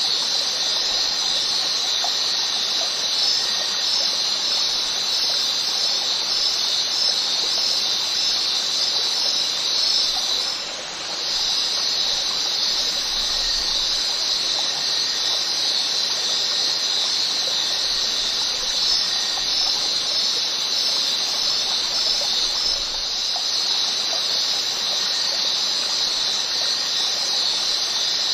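Steady high-pitched hiss, with a brief dip about eleven seconds in.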